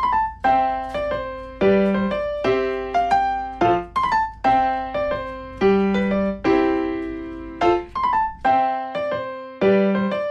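Background music: an electric piano playing a light, bouncy melody in quick, evenly struck notes, with a faint low hum underneath that stops near the end.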